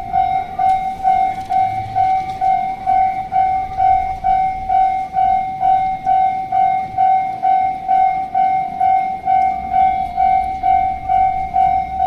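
Japanese level crossing's electronic warning bell ringing steadily, about two dings a second, sounding while the barrier is down for an approaching train. A low rumble comes in near the end.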